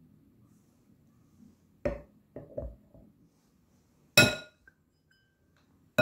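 Glassware being handled and set down: a few dull knocks about two seconds in, then a sharp, ringing glass clink a little after four seconds and another at the end.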